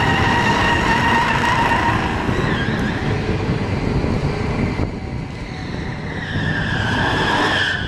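Muscle car engines running hard at a drag strip, with a high, steady squealing tone over the engine noise. The squeal fades about two seconds in and comes back near the end.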